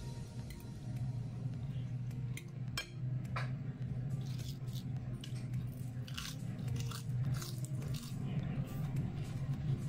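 A person chewing a mouthful of spicy instant noodles, with short sharp wet mouth clicks and smacks several times, over a low steady hum.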